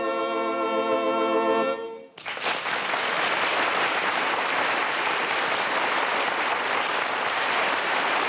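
Orchestral closing chord, led by brass, held and then ending about two seconds in, followed by a steady rushing noise.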